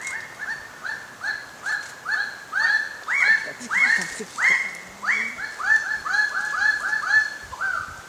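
Raggiana bird-of-paradise males calling at a display: a long series of loud, repeated rising-then-level calls, about two a second and often overlapping. Near the end they quicken to about five a second and close with a lower, falling note.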